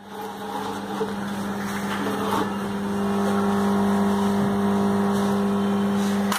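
Automatic voltage stabilizer's relay humming with a steady, loud mains buzz, a fault sign that comes with the unit's high output voltage.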